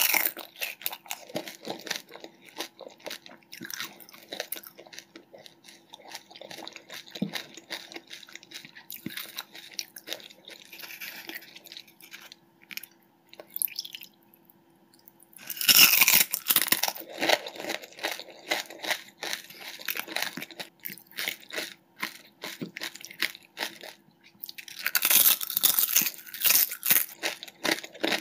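Close-miked eating of pani puri: crisp, hollow fried puris crunching between the teeth, then wet chewing. The loudest crunches come about halfway through and again near the end, after a short quiet pause. A faint steady hum sits underneath.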